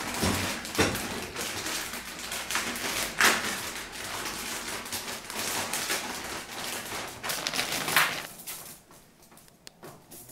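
Plastic bag of frozen crinkle-cut fries crinkling and rustling as it is handled and opened, with a few louder crackles. Near the end it gives way to quieter light taps as the frozen fries are spread by hand on a foil-lined baking tray.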